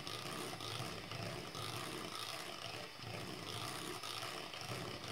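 Electric hand mixer running steadily, its beaters whisking thick cake batter.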